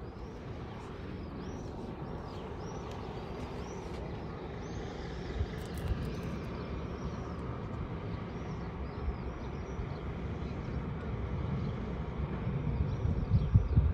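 Wind rumbling on the microphone, gustier and louder near the end, with a run of short, high bird chirps repeating every half-second or so above it.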